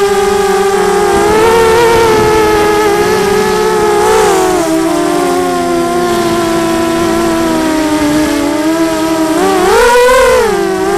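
Racing FPV quadcopter's electric motors and propellers whining as it flies, the pitch rising and falling with the throttle. The pitch sinks low through the middle, then surges up and drops back near the end.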